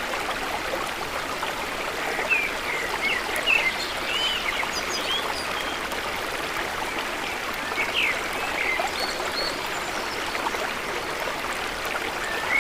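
Stream water running steadily, with scattered short bird chirps over it, a few clustered a couple of seconds in and again past the middle.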